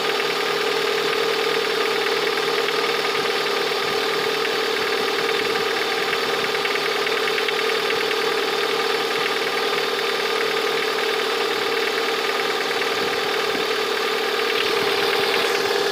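Lada VAZ-21126 1.6-litre 16-valve four-cylinder engine idling steadily while not yet fully warm, with a rhythmic knock of unknown cause and a steady whine over the idle.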